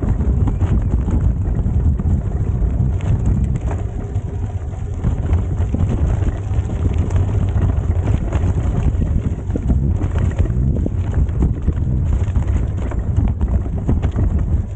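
Bicycle tyres rolling over a rocky, bumpy gravel track, with wind buffeting the microphone: a steady low rumble crowded with small crackles and rattles from the stones.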